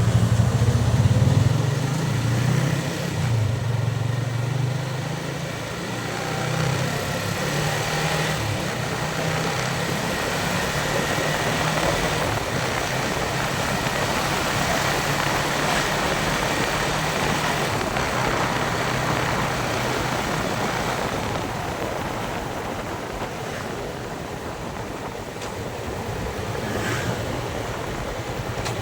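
Yamaha Vixion single-cylinder motorcycle engine running under a steady rush of wind and road noise. The engine hum is plain for the first couple of seconds, then sinks under the wind noise, and comes back up near the end.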